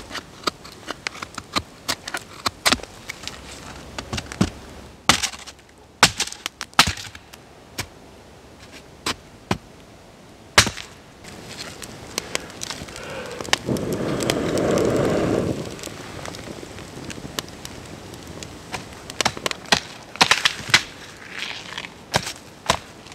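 Small wood campfire crackling and popping, with a knife shaving a stick beside it at first. About fourteen seconds in, a rush of noise lasting a couple of seconds is the loudest sound. Near the end, sharp cracks and snaps of branches being broken off a small tree.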